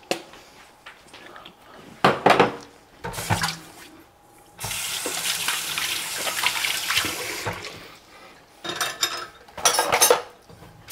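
Kitchen tap running for about three seconds in the middle, filling a small container with a little water. Short clatters and knocks of things being handled come before and after it.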